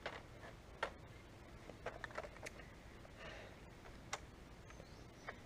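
Faint, scattered clicks and knocks of an IWI X95 Tavor airsoft rifle being picked up and handled.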